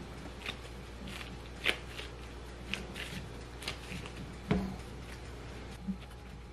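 Gloved hands handling a lump of chunky cookie dough and a glass bowl on a kitchen scale: soft rustling with scattered light clicks and taps, and one louder knock about four and a half seconds in.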